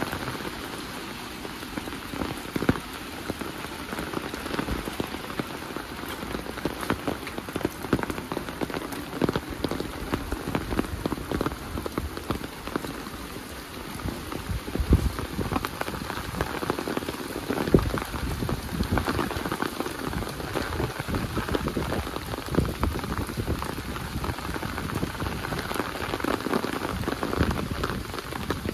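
Steady rain falling, an even hiss thick with the sharp hits of many close drops; a few louder drop hits stand out now and then.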